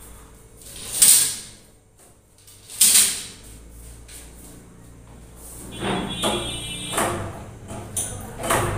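A collapsible metal grille gate being slid shut, with two loud swishing rolls about one and three seconds in. Later come rattles and metallic clinks as the gate is fastened.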